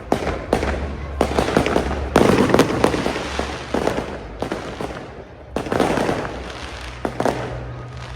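Fireworks display: rapid salvos of bangs and crackling bursts, loudest about two seconds in, with a short lull midway before another salvo.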